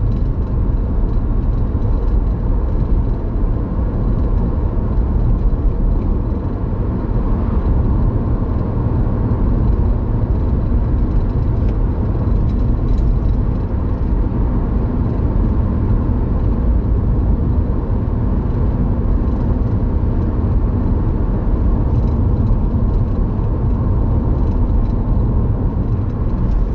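Road and tyre noise inside a moving car: a steady low rumble.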